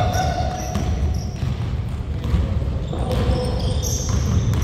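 Basketball being dribbled on a hardwood gym floor amid players' running footsteps and sneaker squeaks.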